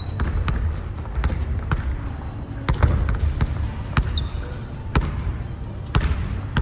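A basketball dribbled on a hardwood gym floor, sharp irregular bounces about once or twice a second, with brief sneaker squeaks as the players cut.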